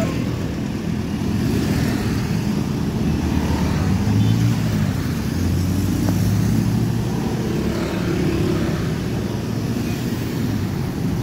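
Dense road traffic of small motorcycles and cars driving past, their engines running steadily. A deeper engine hum stands out for a few seconds in the middle.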